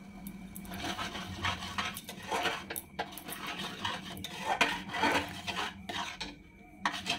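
Metal spatula stirring thick simmering mung dal in an aluminium kadai, scraping against the bottom and sides of the pan in repeated strokes. A couple of sharp clicks of metal on metal come near the end.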